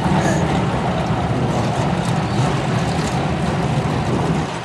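BriSCA F1 stock cars' V8 engines giving a loud, steady low rumble as the cars pass one after another on the dirt oval.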